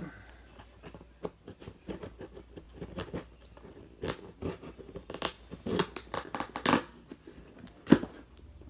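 Packing tape being cut and torn open on a cardboard shipping box: irregular scratching, slitting and tearing strokes, with one sharp crack near the end.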